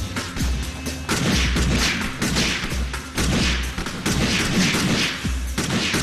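Rapid gunfire from a shootout in a TV action drama's sound effects, over dramatic background music with a heavy low beat. The shots come thick from about a second in.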